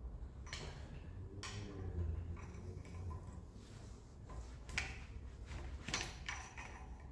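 Metal tools and engine parts being handled: a series of separate sharp clanks and knocks, irregularly spaced, with two of the strongest about five and six seconds in.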